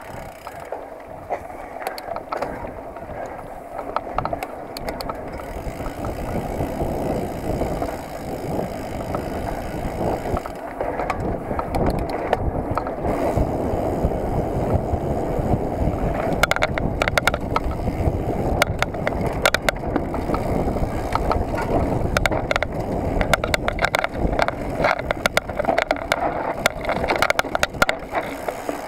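Mountain bike ridden over dirt singletrack, heard from a camera mounted on its handlebars: steady tyre noise with the frame and parts rattling. About halfway through, the clatter and knocks get busier and louder as the trail turns rough and runs downhill.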